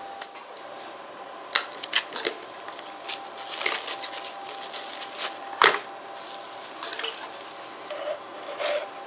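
Crinkling and rustling of clear plastic wrap being pulled off a new hydraulic oil filter, in scattered short crackles and clicks, with one sharper knock about two thirds of the way through.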